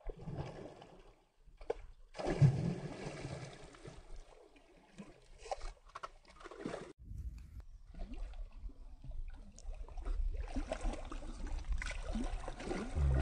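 Water splashing in several bursts as a hooked rohu thrashes at the surface near the bank. The loudest burst comes about two to four seconds in. In the second half a steady low rumble runs under more splashing.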